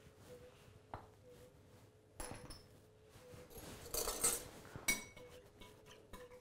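Metal spoon and ceramic dishes: a few light clinks and some soft scraping as a sauce is mixed in a ceramic bowl.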